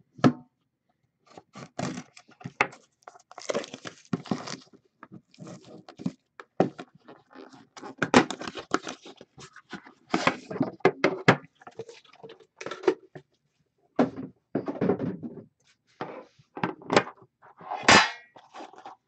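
A sealed 2014-15 Upper Deck The Cup hockey card box being torn open and its packaging handled: irregular ripping, rustling and knocks, with a sharp click right at the start. The card tin inside knocks against the box as it is pulled out.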